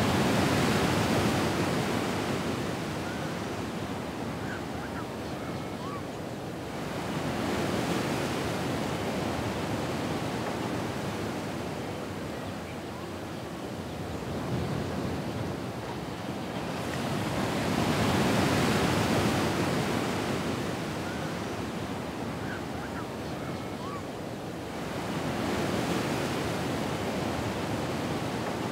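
Ocean waves breaking and washing back, the surf swelling and falling off about every eight to ten seconds.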